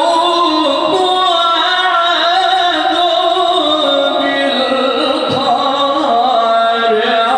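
A male qari reciting the Quran in the drawn-out melodic style, holding long, wavering ornamented notes in one continuous line of voice.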